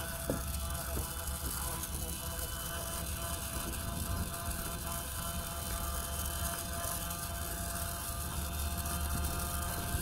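Battery-powered toy iron's small motor buzzing steadily while it is pushed over cloth.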